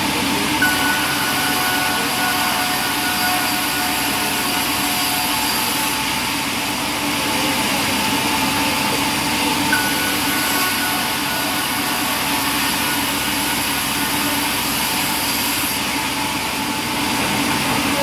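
Large vertical band saw running steadily while a board is fed through the blade: a constant mechanical hum. A thin high whine sets in with a small knock about half a second in and again about ten seconds in, then fades each time.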